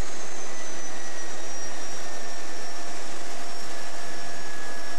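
Quest Kodiak 100's PT6A turboprop engine running at low power while the plane taxis: a steady rushing hiss of propeller and turbine, with a high turbine whine that slowly falls in pitch.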